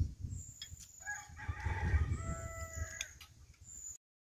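A rooster crowing once, a drawn-out call of about two seconds, over a low rumble; the sound cuts off abruptly near the end.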